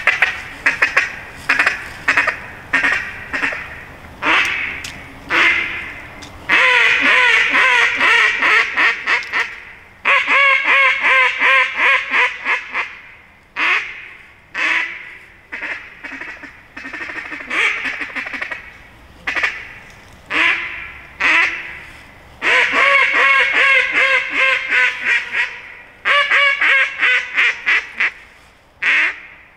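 JJ Lares Hybrid duck call blown by mouth, imitating a mallard hen: strings of loud, separate quacks alternating with several-second runs of rapid chattering.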